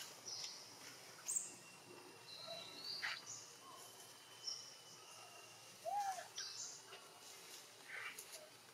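Faint outdoor ambience of scattered short bird chirps and calls over a low background hiss, with a thin steady high tone held for several seconds in the middle.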